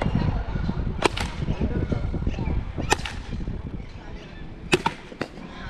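Sharp cracks of a cricket bat hitting a ball off a cone in a quick-fire pull-shot drill: three loud hits about two seconds apart, then a fainter knock near the end, over a low rumble.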